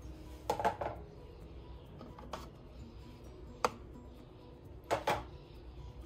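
Dishes being handled: a few scattered light clinks and knocks, about four in all, the sharpest a little past halfway.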